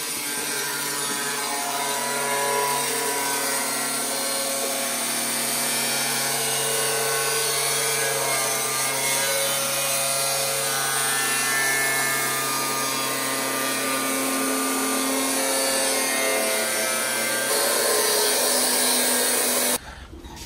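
Handheld angle grinder with a cutting disc running steadily as it trims the edge of a steel vehicle body panel. It stops abruptly near the end.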